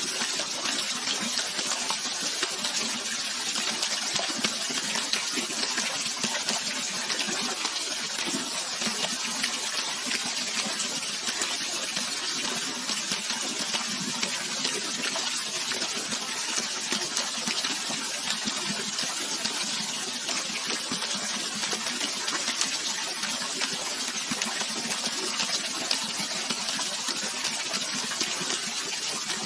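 Water rushing steadily: an even, unbroken hiss with no pauses or changes in level.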